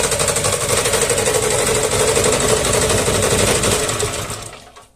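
Homemade generator's petrol engine, turning an induction motor used as the alternator, running steadily under a load of nearly 2 kilowatts. About four seconds in, it winds down and stops.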